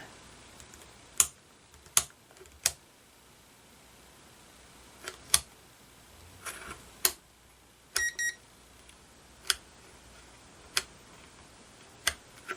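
Mastercraft autoranging digital multimeter being switched on and worked: a string of single sharp clicks from its selector dial and buttons, and one short high-pitched electronic beep from the meter about eight seconds in.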